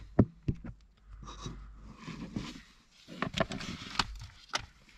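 Engine coolant running and dripping out of a hole drilled in the heater core pipes into a container, with a few sharp taps.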